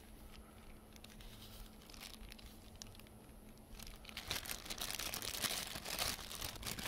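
Plastic bag crinkling over a hand as it smooths a bead of lap sealant along a roof vent flange. Faint rustling at first, turning into steadier, louder crinkling about four seconds in.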